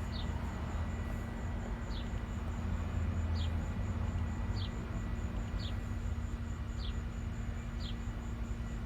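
Cadillac ATS engine idling steadily, no misfire heard, with short high chirps repeating about once a second over the idle.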